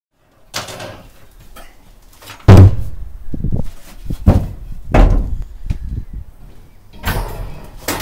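A run of knocks and bangs as things are moved about in a wooden garden shed. The loudest bang comes about two and a half seconds in, with smaller knocks after it and a rustling scrape near the end.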